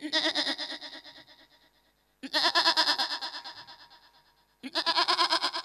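A man imitating a goat's bleat with his voice into a handheld microphone: three long, quavering bleats, each fading away, the second about two seconds in and the third near the end.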